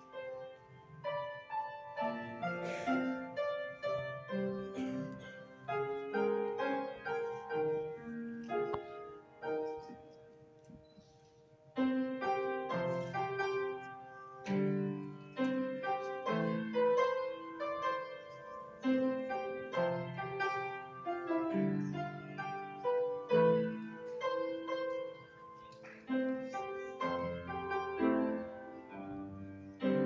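Grand piano played solo, melody over chords. It softens to a quiet passage about ten seconds in, then comes back in loudly near the twelve-second mark.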